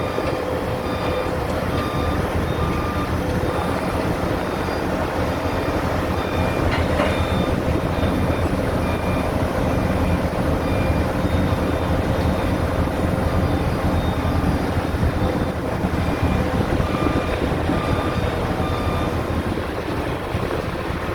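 Heavy crane's engine running steadily under a repeating warning beeper at about two beeps a second, which stops for several seconds at a time and then resumes.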